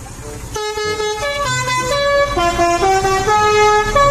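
Telolet horn on a bus playing a tune: a quick run of held horn notes stepping up and down, starting about half a second in and growing louder, over a low engine rumble.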